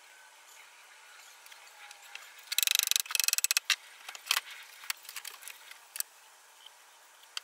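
Wooden coat-tree parts being handled and fitted together on a workbench during glue-up. A dense run of rapid rattling clicks about two and a half seconds in is followed by scattered sharp knocks.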